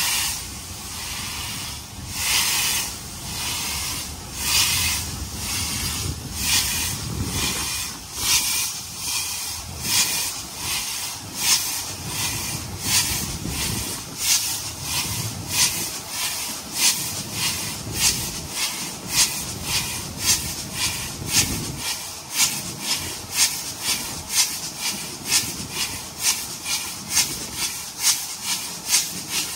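Stanier Black 5 steam locomotive pulling a heavy train away. Its exhaust beats start slow, a couple of seconds apart, and quicken steadily to about two a second as it gathers speed, with steam hiss between them.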